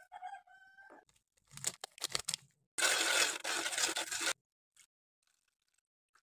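A wire whisk stirring dry granulated sugar in an aluminium saucepan: a few clicks and scrapes, then a loud gritty scraping for about a second and a half in the middle. A brief ringing note sounds right at the start.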